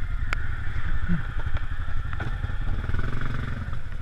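Off-road vehicle engine running, with a rev that rises and eases off about three seconds in, and a few sharp clicks.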